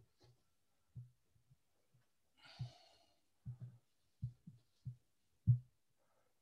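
Soft, low thumps, about seven in a few seconds, from a laptop being worked on a wooden lectern, with a brief hiss about two and a half seconds in.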